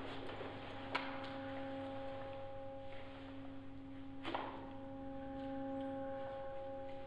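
A steady ambient drone: one held low tone with overtones over a faint low hum. Two short sharp clicks stand out, about a second in and just after four seconds.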